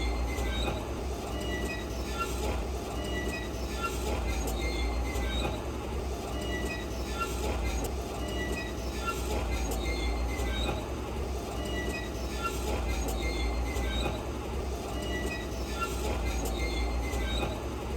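Diesel heavy construction machinery running with a steady low rumble. Short high squeaks repeat about once a second over it.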